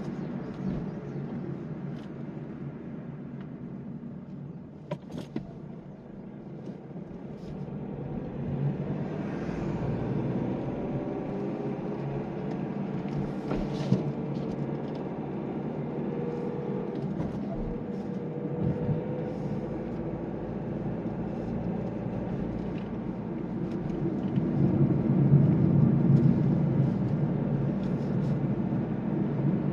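Inside the cabin of a Mazda2 (Demio) with a 1.5 litre diesel engine while it is driven on the road: a steady rumble of engine and tyre noise. It grows louder about a third of the way through and again near the end, with a couple of small clicks or knocks.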